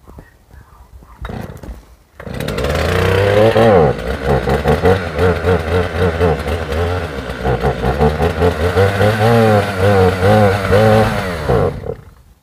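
Two-stroke chainsaw running loud from about two seconds in, its engine speed rising and dipping over and over as it is throttled and worked, then stopping shortly before the end.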